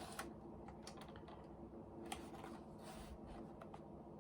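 Faint room tone with a low steady hum and a few scattered soft clicks.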